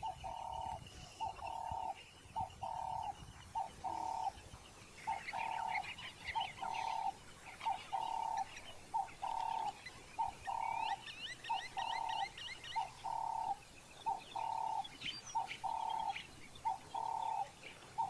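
A dove cooing over and over, each phrase a short note followed by a longer one, repeating about once a second. Other small birds chirp at times behind it.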